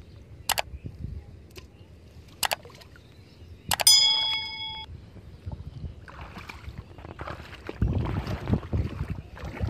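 Two sharp clicks and then a bright bell ding that rings for about a second: the click-and-bell sound effect of a like-and-subscribe button animation. Later, water sloshing and splashing as someone moves through shallow water.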